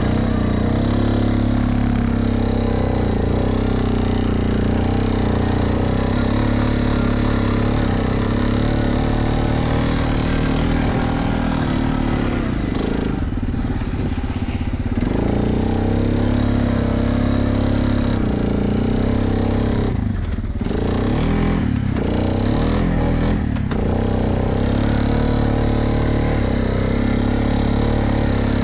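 ATV engine running as the quad drives through snow. Its pitch dips and climbs again a few times as the throttle is eased off and reopened, around the middle and again about two-thirds through.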